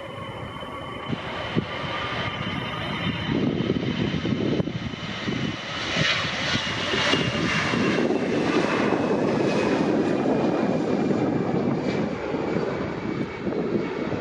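Jet airliner's engines passing by, the noise building to a peak in the middle and easing a little near the end, with a high fan whine slowly falling in pitch.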